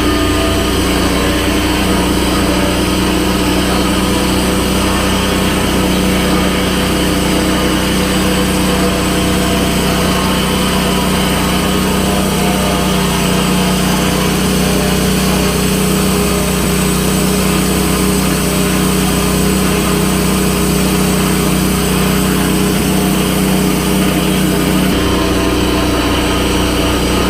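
An engine running steadily at an even speed, its note shifting slightly near the end.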